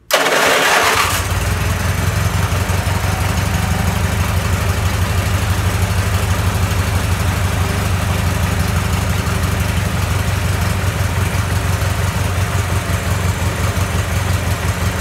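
Zero-turn riding mower's engine starting: about a second of cranking, then it catches and runs steadily.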